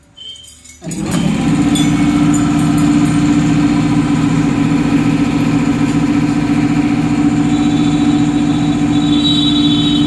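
A loud machine starts up about a second in and runs steadily with a constant hum, no revving.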